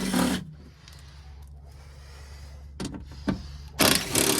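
Hand work on a truck door's inner parts: a short scraping rustle at the start, two clicks about three seconds in, and a louder scraping rustle near the end, over a steady low hum.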